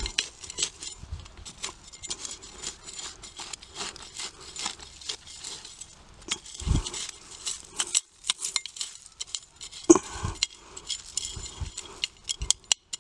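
Hand scraping dry dirt and leaf litter in around a planted pineapple top: irregular scratching and crackling, with a couple of dull thumps about seven and ten seconds in.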